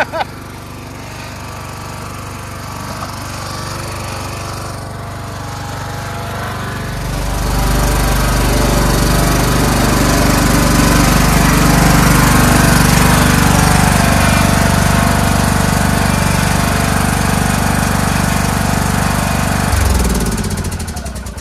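Craftsman LT2000 lawn tractor engine running steadily under way, growing louder about a third of the way in, then switched off near the end and winding down to a stop.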